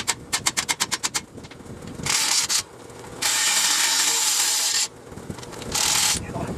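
A socket ratchet clicking rapidly and evenly for about a second, then a cordless power ratchet running in three bursts, the middle one about a second and a half long, as bolts are backed out of the underside of an engine.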